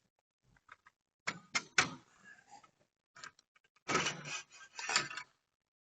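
Scattered clicks and knocks, then two bursts of clattering knocks near the end, as a motorcycle rear wheel is worked free and lowered out of the swingarm.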